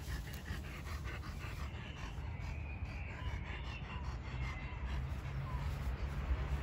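Caucasian Shepherd dogs panting in quick, even breaths, with a few faint bird chirps over a low steady rumble.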